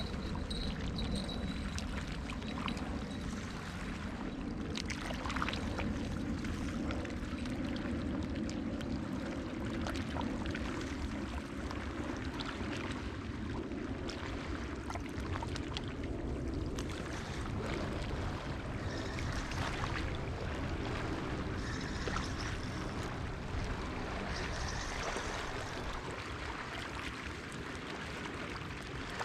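Small waves lapping steadily at the lake's edge, over a low rumble of wind.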